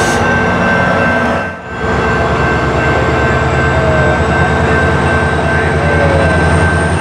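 SunRail MP32PH-Q diesel-electric locomotives running at a station: a loud steady engine drone with a high steady whine over it. The sound drops away briefly about a second and a half in, then returns as before.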